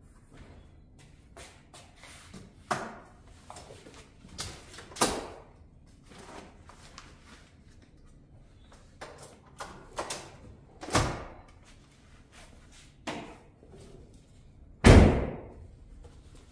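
A Jeep Wrangler's swing-out rear tailgate opened and shut, with scattered knocks and clunks as a bag is lifted out of the cargo area, ending in a heavy slam about fifteen seconds in as the tailgate closes.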